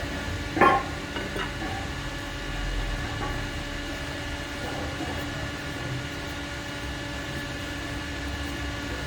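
A steady mechanical hum with a sharp knock a little under a second in, followed by a couple of lighter clicks.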